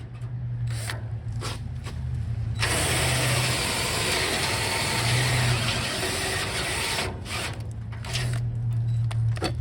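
Cordless drill running a Rotabroach spot-weld cutter: a steady motor hum, with a loud grinding hiss for about four and a half seconds in the middle as the cutter bites into a spot weld in the sheet-steel truck bed. The drill quits near the end as its battery dies.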